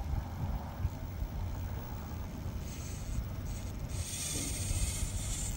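Wind rumbling on the microphone, with a high whirring hiss from the small RC crawler's electric motor and gears: a short burst past the middle, then a longer, louder one near the end as it creeps over the rock.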